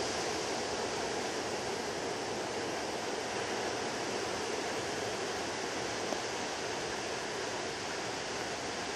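Steady wash of small ocean waves breaking onto a sandy beach.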